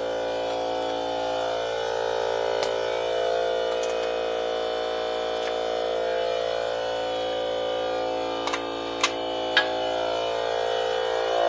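DeWalt FLEXVOLT 60V cordless air compressor's motor running steadily, building its tank back up to pressure after use. A few sharp clicks sound over it, the two loudest close together near the end.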